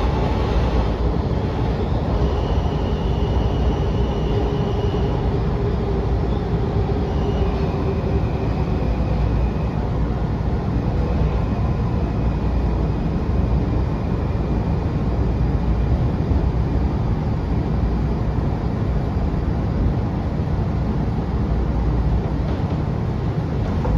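Washington Metro 6000-series railcar running along the line, heard from inside the car: a steady rumble of wheels on track. Faint high whining tones come and go in the first half.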